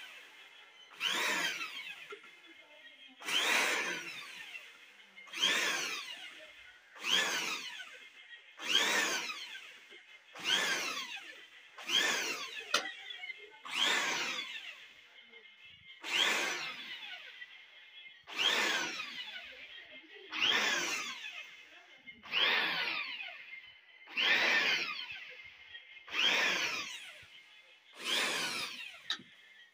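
Electric drill pulsed again and again, about fifteen times roughly every two seconds. Each time the motor whirs up and then winds down in falling pitch as it spins a light-up toy.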